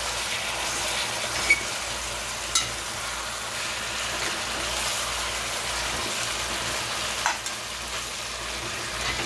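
Chicken, onions, green onion tops and parsley sizzling in a hot metal pot while being stirred with a metal meat fork. A steady frying hiss, with a few sharp clicks.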